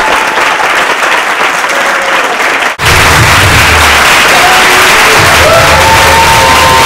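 Theatre audience applauding steadily. About three seconds in, the sound drops out for an instant and picks up again as fuller applause.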